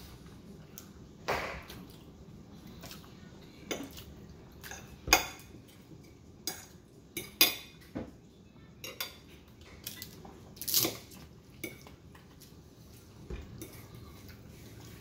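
Tableware clinking and knocking at a meal: about a dozen short, sharp clinks and knocks scattered at irregular intervals, the loudest about five and seven seconds in.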